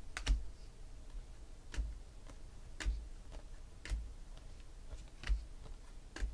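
2016 Panini Select football cards being flicked off a stack one at a time, with a short, sharp click and a soft thump as each card is handled, roughly once a second.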